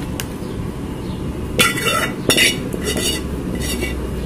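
A utensil scraping and clinking against a pot about five times in quick succession as the last of a thickened milk mixture is poured out of it.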